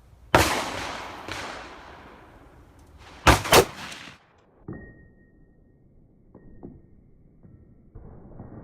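Gunshots: a loud shot with a long echoing decay, a quieter one about a second later, then two loud shots in quick succession about three seconds in. A short steady high beep follows.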